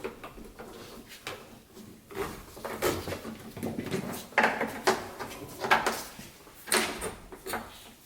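Hand-tool work on a brake line at its junction block: a string of irregular clanks, clicks and scrapes, with several sharper knocks in the second half.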